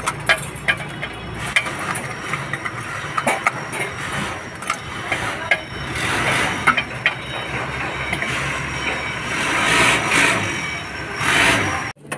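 A steady low engine hum under scattered sharp metallic clicks and clinks of hand tools, with a few short hissing swells.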